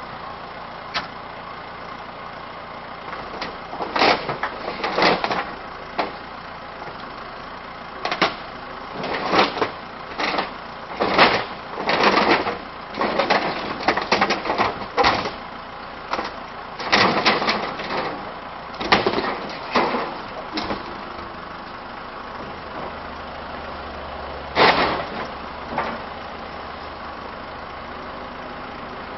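A Caterpillar backhoe's diesel engine runs steadily while its bucket tears into a mobile home, with many loud crashes and cracks of breaking wall panels and framing through the middle of the stretch and one more near the end.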